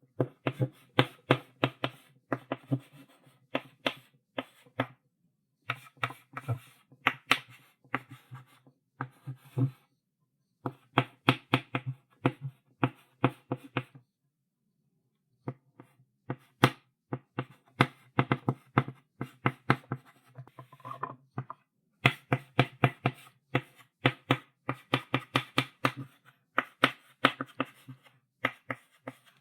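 Chalk writing on a blackboard: quick runs of sharp taps and short strokes, several a second, broken by brief pauses between words.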